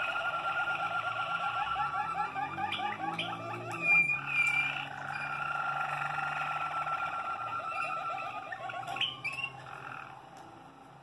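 Malinois Waterslager canaries singing: a continuous stream of rapid rolling trills, with two clear whistled notes about four seconds in. The song tails off near the end.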